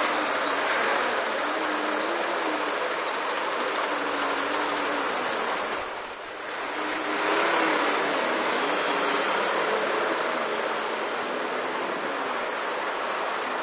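Steady wind rush on the microphone of a camera riding along on a bicycle, mixed with city traffic noise, dipping briefly about halfway through. In the second half short high squeaks repeat about every two seconds.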